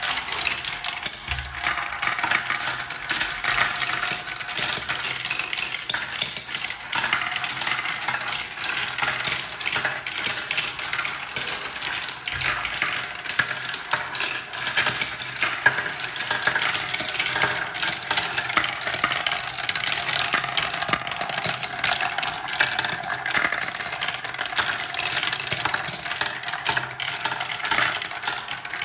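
Glass marbles rolling and clattering through a clear plastic marble run. The sound is a continuous rattle of small clicks as they bounce down the stepped tracks, turn the paddle wheels and circle the funnel.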